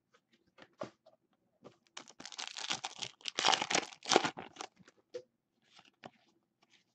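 A plastic trading-card pack wrapper being torn open and crinkled in the hands: a dense crackling rush lasting about two and a half seconds, starting about two seconds in. Light scattered clicks of cards being handled come before and after it.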